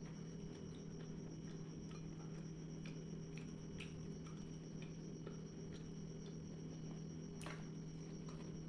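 Quiet eating sounds: scattered small clicks and soft squishy chewing noises, with a sharper click about seven and a half seconds in, over a steady low hum.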